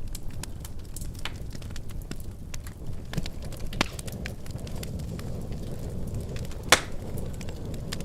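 Wood fire crackling in a fireplace: a steady low rumble of burning under frequent sharp pops and snaps, with the loudest pop near the end.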